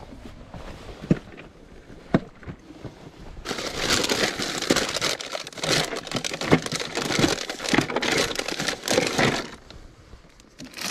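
A crinkling, rustling noise lasting about six seconds, starting a few seconds in, after a couple of single knocks.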